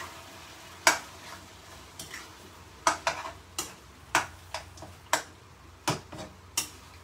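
Metal cooking utensil knocking and scraping against a frying pan while mushrooms are stirred in it, in about a dozen irregular clinks.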